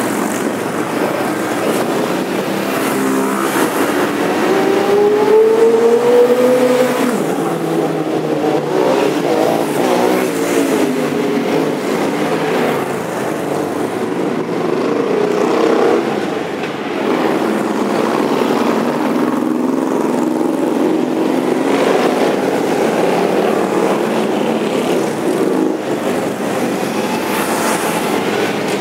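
A stream of motorcycles riding past one after another, a mix of V-twin cruisers and sport bikes, their engines running at low road speed. One engine's note rises as it accelerates about four to seven seconds in.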